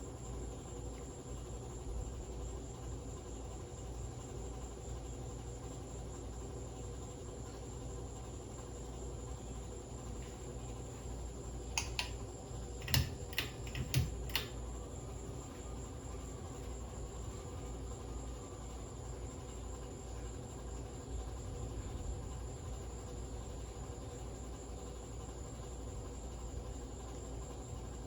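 Harbor Breeze Lakeside II ceiling fan running slowly because its capacitor is bad: a steady low motor hum under a steady high-pitched pulsing chirr. A few sharp clicks come about halfway through.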